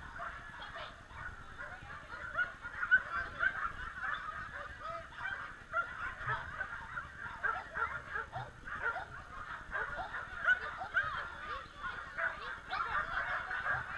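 Many dogs barking and yapping excitedly at once, a constant din of short overlapping barks.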